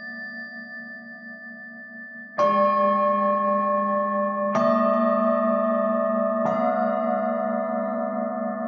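Resonant metal percussion struck three times, about two seconds apart. Each stroke rings on in long, overlapping tones above a low, wavering hum.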